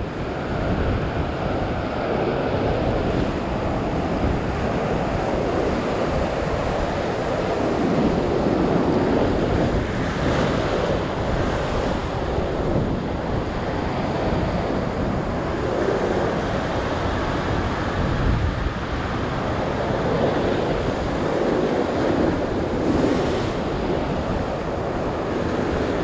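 Ocean surf washing over the rocks, swelling and easing every few seconds, with wind buffeting the microphone.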